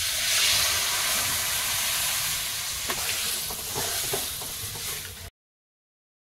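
Water poured into a hot kadai of fried masala, potatoes and eggs: a loud hissing sizzle that starts at once and slowly dies down, with a few faint clicks. It cuts off abruptly about five seconds in, leaving a second of silence.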